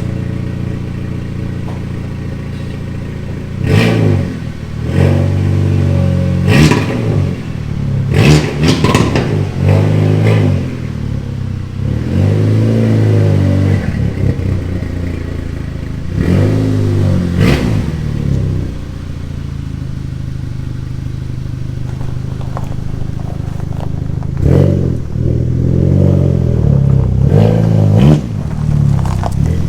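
Car engine idling and being revved in repeated short blips, with a steadier stretch in the middle and another run of revs near the end.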